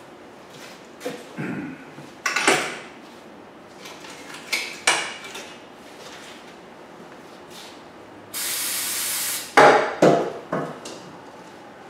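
Workshop tool noises: a series of metal clanks and knocks, and a steady hiss lasting about a second near the end, followed at once by several loud clanks.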